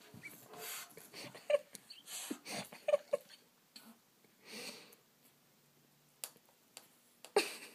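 A Rottweiler and a cockatoo sparring at close quarters: short wheezy huffs and hisses in irregular bursts, with gaps between them and the loudest burst near the end.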